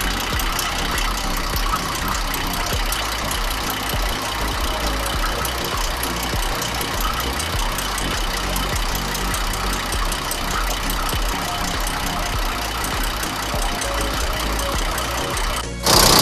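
MAN diesel truck engine idling steadily after an in-chassis overhaul, with an even ticking clatter from the valve gear. A sudden loud rush of noise cuts in right at the end.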